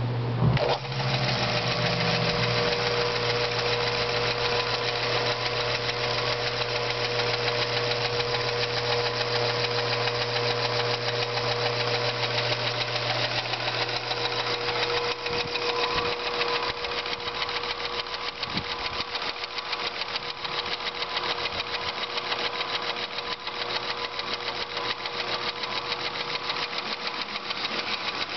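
A rebuilt 25 lb Little Giant power hammer running under power, its electric motor driving the flywheel through V-belts. It runs with a steady hum and a fast, even ticking. A low hum fades about halfway through.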